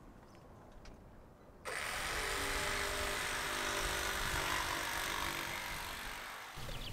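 A handheld power tool starts about a second and a half in, runs steadily for about five seconds while working a sheet of plywood, then stops.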